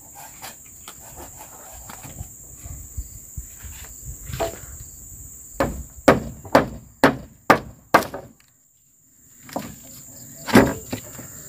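A tool striking timber while a log-walled hut is built: a run of about five sharp knocks half a second apart, then one more near the end, with a few fainter knocks before. Under it, a steady high insect buzz.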